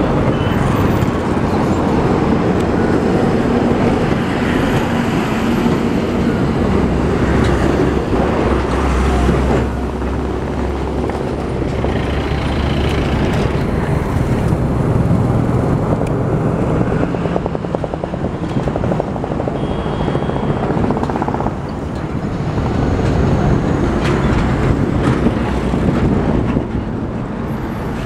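ALCO diesel locomotive's engine running steadily as it hauls a freight train toward the listener, a low rumble under a broad wash of outdoor noise.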